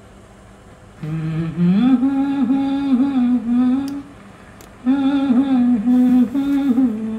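A vintage MAXstar cassette deck plays an old Hindi film song through small speakers. After about a second of faint tape hiss, a wordless vocal line comes in, humming long held notes, breaks off briefly a little after the middle, then resumes.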